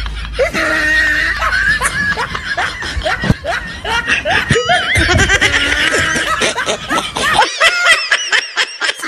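Laughter from several overlapping voices, in quick runs that bend up and down in pitch. The low end drops away a little past halfway through.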